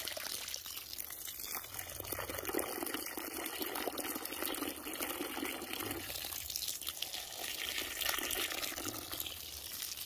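Water from an open garden hose pouring steadily onto the soil in a planting tub.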